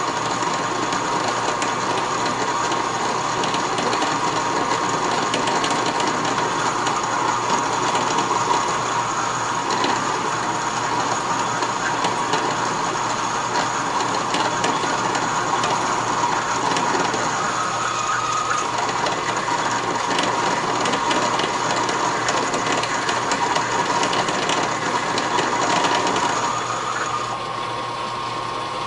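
Metal lathe cutting a 2.5-inch steel bar, most likely taking a boring cut inside the adaptor: a steady machining noise with a constant whine. Near the end the whine stops and the level drops as the cut ends, while the lathe keeps running.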